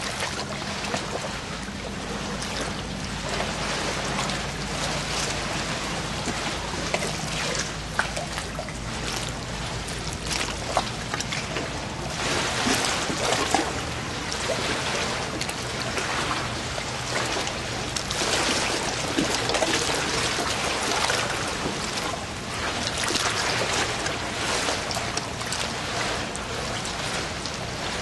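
Water trickling and splashing steadily, with many small drips and splashes, over a low steady hum that fades out about halfway through.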